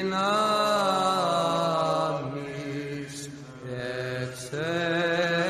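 Background music of chanted voices over a held low drone note, the upper line sliding and wavering in pitch. It dips briefly about three and a half seconds in, then swells again.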